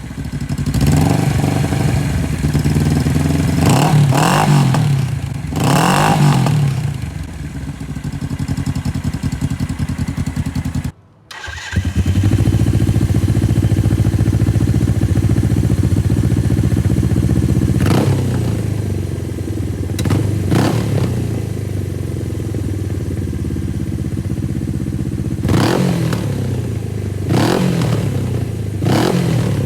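Motorcycle engine idling through a slip-on exhaust, blipped to higher revs a few times. About eleven seconds in, the sound breaks off for a moment and resumes with a different exhaust, idling steadily with more blips later on. The exhausts compared are a stock one, the same one with its end caps cut off (crackly and poppy), and a reverse cone slip-on with a deeper, smoother note.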